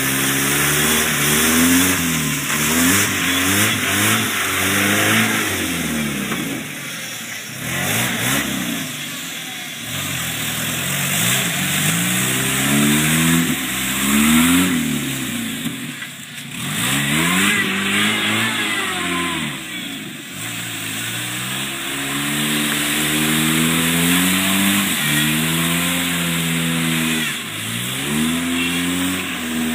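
A Jeep's engine revving hard and easing off again and again, every couple of seconds, as its tyres spin in deep swamp mud, with the hiss and splash of water sprayed off the spinning wheel.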